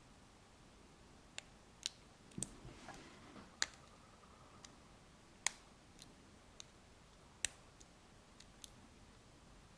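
Master Lock No. 230 padlock being picked: scattered sharp metallic clicks of the pick on the pin stack, about a dozen, with a short scrape a couple of seconds in.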